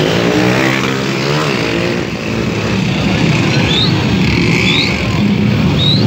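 Motorcycle engine revving as a bike passes close by, its pitch bending down and back up in the first second and a half, over a steady crowd noise. Three short, high, rising chirps come about a second apart in the second half.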